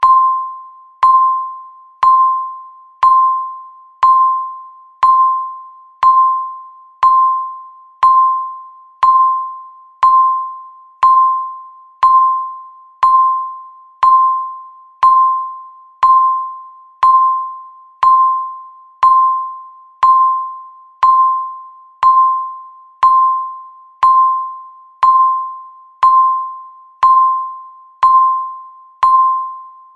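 Countdown timer beeping once a second: a short electronic tone of one pitch that fades quickly after each strike, like a struck chime, steady and even throughout.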